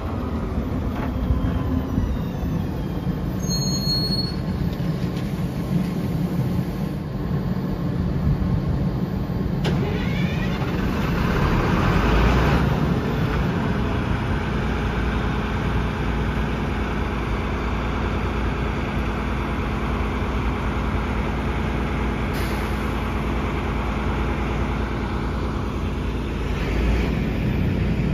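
Bombardier TVR rubber-tyred guided tram running close by, its traction and auxiliary equipment humming steadily. A rising motor whine swells about ten seconds in.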